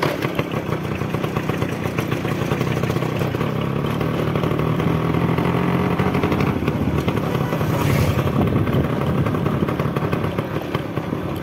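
Suzuki Samurai motorcycle's two-stroke single-cylinder engine running steadily while the bike is ridden, with a brief hiss about eight seconds in.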